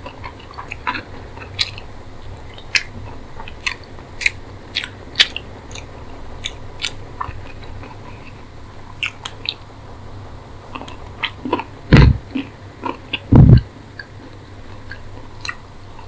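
Close-miked eating sounds of a person eating chicken curry and rice by hand: a steady run of short chewing clicks and mouth smacks, with two loud deep thumps about three-quarters of the way through.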